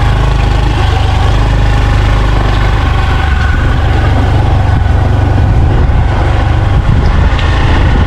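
Motorbike engine running steadily under way on a rutted, muddy dirt road, a loud, even low drone.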